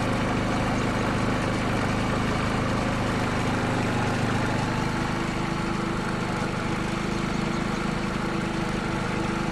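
Predator 3500 inverter generator's 212cc single-cylinder engine running steadily, throttled down, during its break-in run; a higher tone in the hum grows stronger about halfway through.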